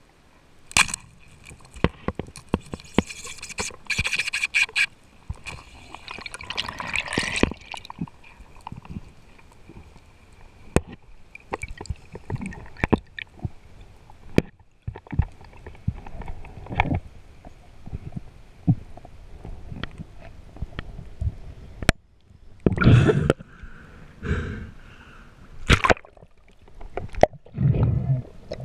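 Water sloshing and gurgling around an underwater camera housing, muffled, with many sharp clicks and knocks and several louder rushing bursts.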